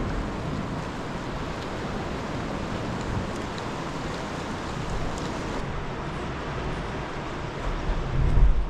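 Ocean swell washing against the rocks in a steady hiss, with wind rumbling on the microphone; a louder low rumble swells near the end.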